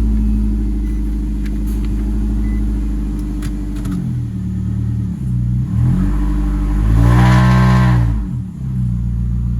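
2011 Nissan Altima engine running just after a restart, its speed sagging and recovering a few times, with one higher rise about seven seconds in. It begins misfiring within seconds, a sign of a faulty ignition coil.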